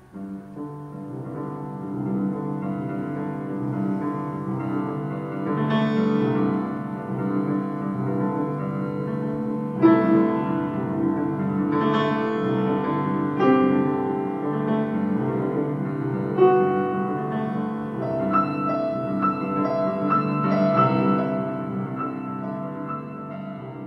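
Solo piano playing slow, sustained chords, with new notes struck every second or two; near the end a higher note repeats in a quick pattern.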